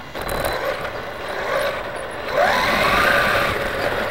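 RC car driving over rough ground, its drivetrain clattering, with the electric motor's whine rising and falling as it speeds up about two and a half seconds in, the loudest part.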